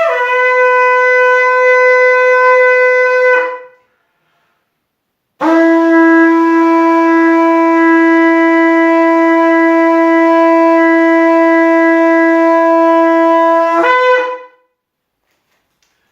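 Shofar blown in two long blasts. The first, already sounding, drops in pitch at the start and holds until about three and a half seconds in. After a short pause, a longer and lower blast holds steady for about eight seconds and ends with a brief upward break in pitch.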